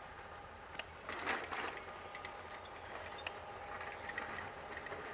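Distant diesel locomotive running light as it approaches, a faint steady engine rumble, with scattered small clicks and a brief louder rush of noise about a second in.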